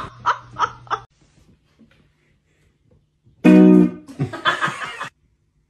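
Electric guitar sounding a loud chord through an amplifier about three and a half seconds in, ringing briefly and fading, after a few seconds of near quiet.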